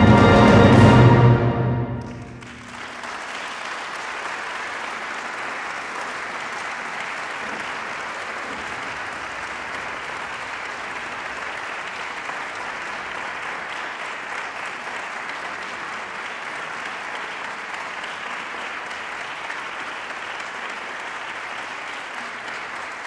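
A concert wind band ends the piece on a loud chord with trumpets and clashed cymbals, which cuts off and rings out about two seconds in. Steady audience applause follows for the rest.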